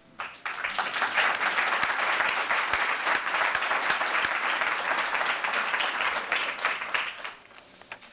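Audience applause: many people clapping, starting about half a second in and dying away about a second before the end.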